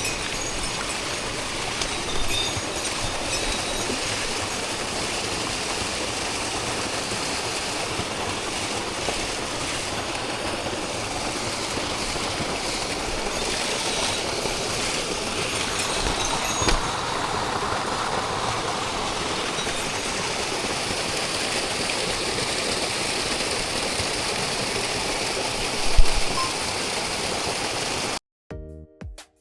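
Mountain stream water rushing steadily over rocks, with a few brief knocks. It cuts off suddenly near the end, and music begins.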